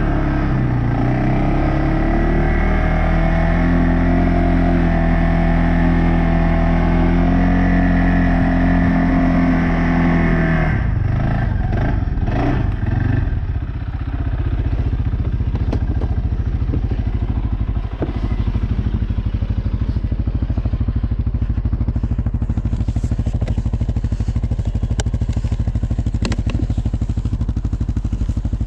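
CFMoto CForce 600 ATV's single-cylinder engine running at a higher speed, then settling about halfway through into a steady idle with rapid, even firing pulses.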